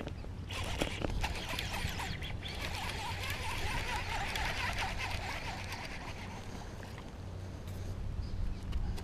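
Close, scratchy rustling and clicking of hands and fishing gear handled right against a chest-mounted camera, with a faint wavering tone for a few seconds in the middle.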